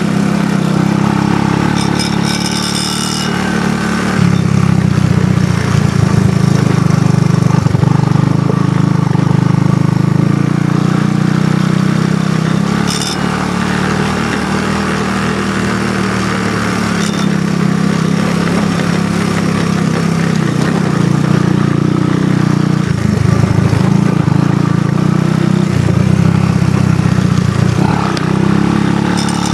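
ATV engine running steadily under way on a dirt trail, the throttle opening and easing off a few times, with a few short rattles.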